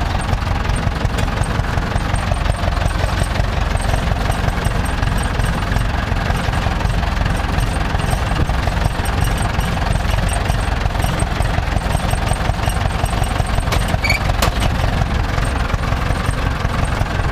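Farm tractor's diesel engine running steadily, with a low, even clatter.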